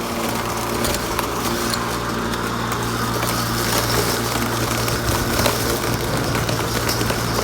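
Bosch CityMower 18 cordless battery lawnmower running, its electric motor and blade giving a steady low hum over a broad whirr.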